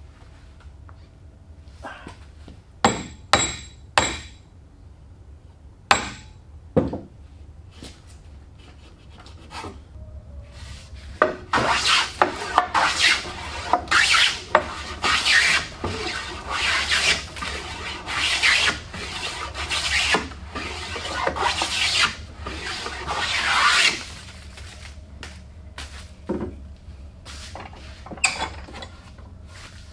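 A few sharp knocks with a faint metallic ring, then a hand tool rasping on wood in repeated strokes, about two a second, for roughly twelve seconds.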